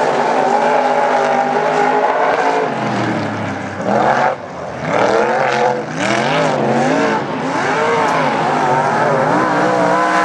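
Dirt modified race car's engine running hard on a qualifying lap, its pitch rising and falling several times as the driver gets on and off the throttle through the corners. The sound dips briefly about four seconds in.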